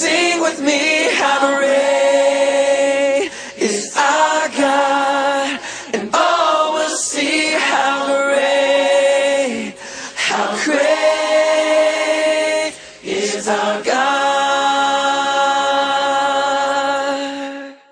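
Choir singing a song with long held notes; the singing cuts off suddenly near the end.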